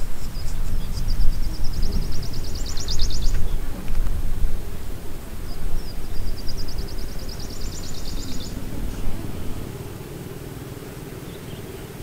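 A small bird's high, fast trill, given twice, each about three seconds long, rising a little in pitch and growing louder before it stops abruptly. Under it runs a loud, uneven low rumble that dies down about ten seconds in.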